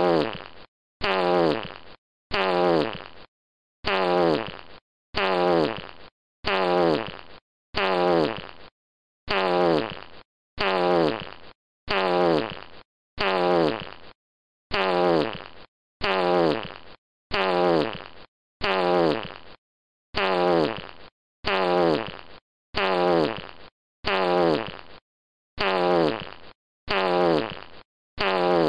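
A fart sound effect played over and over, a little more than once a second. Each fart is the same short blat that drops in pitch and trails off, with a brief silence before the next.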